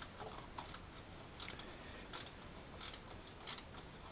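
Faint, irregular clicks and taps of hand tools working on the small nuts at the back of an alternator, about half a dozen over a few seconds.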